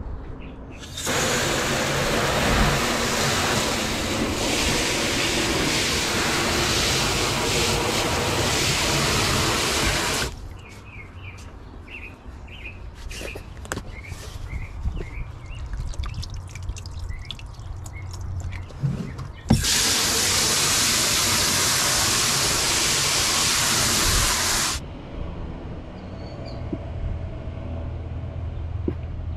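Water gushing hard from a hose, turned on and shut off abruptly twice: once for about nine seconds, then for about five seconds. In the quieter gap between, there are a few light clicks and knocks.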